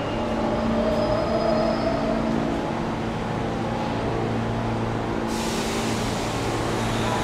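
New York subway N train standing at an underground station platform, humming steadily, with a hiss that starts suddenly about five seconds in.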